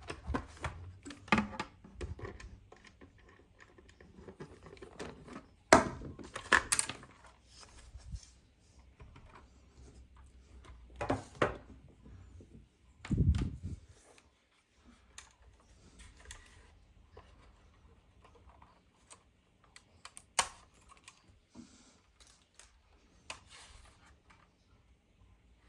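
Irregular clicks, taps and small knocks from hands handling a 1:18 diecast model car and its packaging. The taps are scattered, with a heavier bump about thirteen seconds in.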